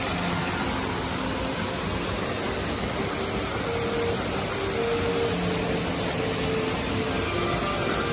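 Fountain water sheeting down from tall columns and splashing into a pool: a steady, unbroken rushing.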